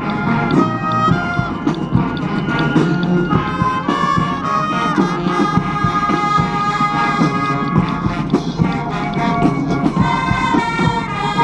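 Brass band music with drums: sustained brass notes over a drum beat.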